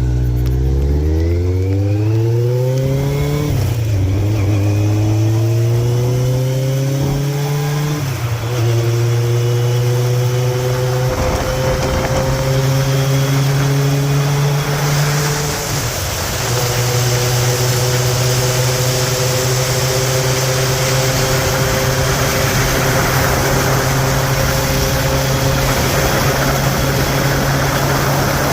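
Motorcycle engine pulling away and accelerating, its note rising and then dropping at two upshifts, about 3.5 and 8 seconds in. It then settles to a steady cruise, with wind noise building in the second half.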